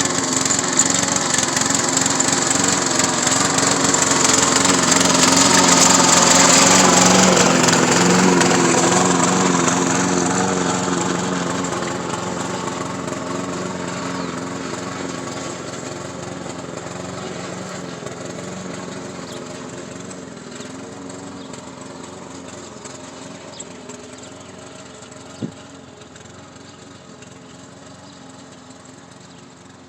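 Remote-controlled lawn mower's engine running steadily, getting louder as it comes closer for the first several seconds, then fading as it moves away. A single sharp click near the end.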